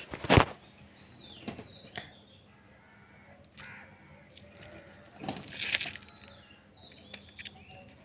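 Two sharp knocks, then faint, intermittent scratching and crunching of dry, lumpy soil as allamanda stem cuttings are pushed into small plastic cups of earth.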